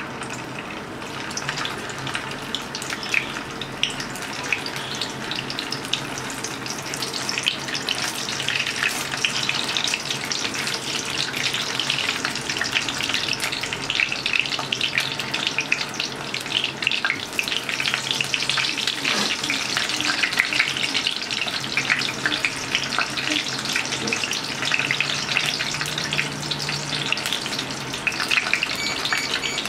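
Chicken sausages sizzling and crackling in hot oil in a frying pan, just after going in to shallow-fry. The crackle gets busier after the first several seconds as more sausages are added.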